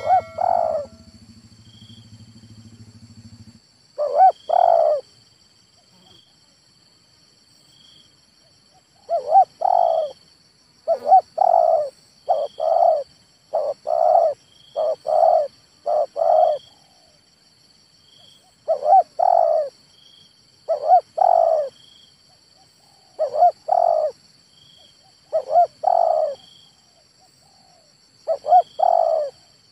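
Male spotted dove cooing: about a dozen phrases of two or three soft notes, each a few seconds apart. Insects trill steadily behind it. A low hum runs for the first few seconds, then stops.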